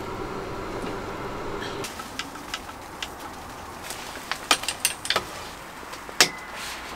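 A steady low rumble for about the first two seconds, then a run of sharp clicks and clinks from a small lantern being clipped onto a metal canopy pole. The loudest clink comes near the end and rings briefly.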